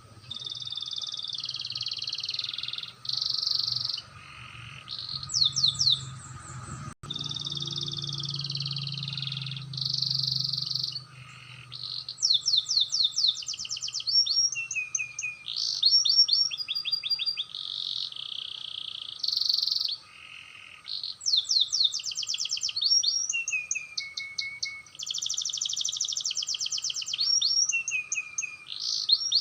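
Domestic canary singing an almost unbroken song of sustained buzzy rolls and rapid trills, broken by quick sweeping notes, with a few brief pauses. A faint steady tone sits beneath it.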